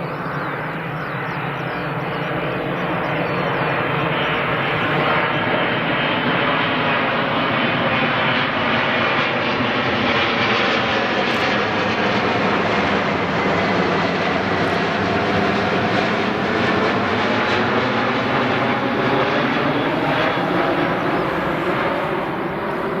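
Boeing 777-200ER jet engines passing close on landing approach: a loud, steady jet rumble that builds over the first few seconds and fades near the end, with tones gliding in pitch as the aircraft goes by.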